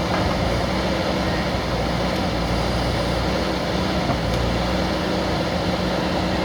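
Diesel engine of a JCB backhoe loader running steadily at an even pitch.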